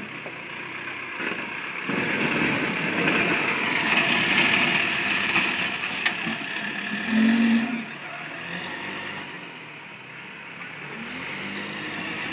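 Backhoe loader's diesel engine running, growing louder about two seconds in and staying loud for several seconds before easing off, with a brief low tone about seven seconds in.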